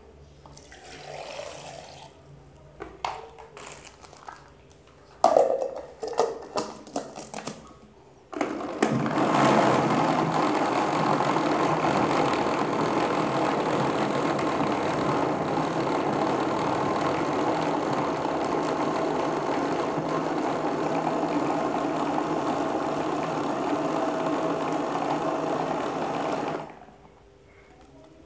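Electric kitchen blender running steadily for about eighteen seconds, grinding chunks of fibrous banana-stem heart with water into a pulp, then switched off near the end. Before it starts, knocks and clatter of the blender jar and lid being handled.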